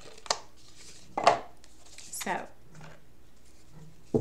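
A few sharp clicks and knocks from a tarot card deck and its box being handled, the loudest about a second in.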